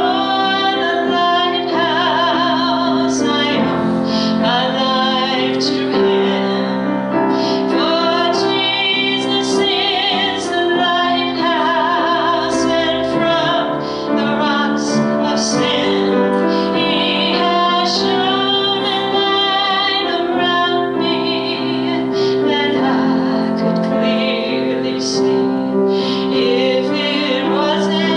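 A woman singing with a strong vibrato, accompanied by piano.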